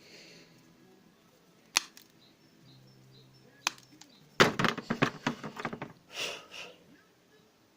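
Metal hand tools clicking and scraping against a small cordless-drill motor's metal housing while its retaining tabs are worked. There is a single sharp click about two seconds in and another near four seconds, then a quick run of clicks and knocks, then a short rasping scrape.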